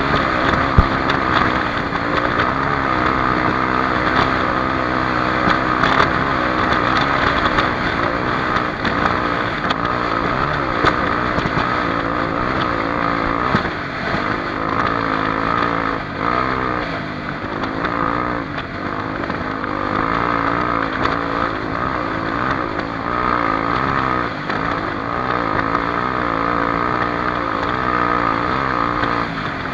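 Honda XR250 Tornado's single-cylinder four-stroke engine running while the motorcycle is ridden. The revs keep rising and falling as the throttle is worked, with a sharp click about a second in.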